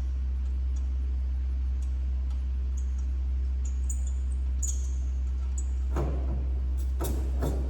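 A steady low hum with a few short, high bird chirps, then a handful of sharp clanks near the end, like tools or metal parts being handled.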